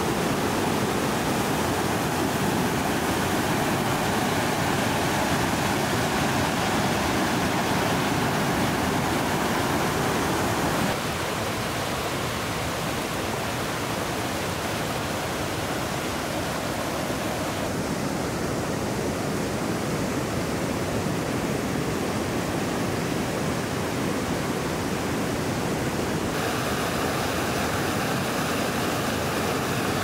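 Fast mountain stream rushing white over boulders, a steady churning of water. Its sound shifts abruptly in character three times, about 11, 18 and 26 seconds in, and is a little louder before the first shift.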